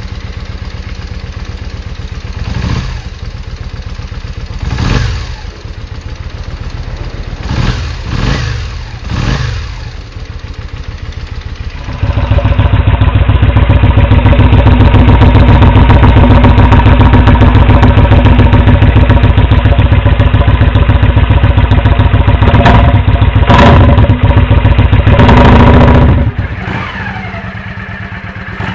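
Yamaha Virago XV400 V-twin running at idle, with five quick throttle blips in the first ten seconds. About twelve seconds in the sound jumps to a much louder, steady engine note with a few more blips, then drops back quieter near the end.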